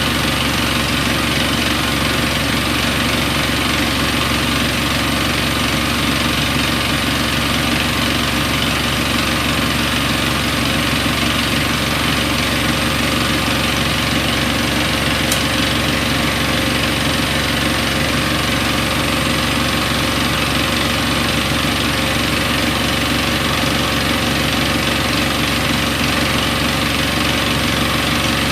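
Siemens Siwamat iQ front-loading washing machine running with a steady, unchanging motor hum and whir.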